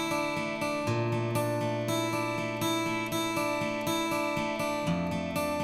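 Background music: acoustic guitar strumming a steady rhythm, changing chord about a second in and again near the end.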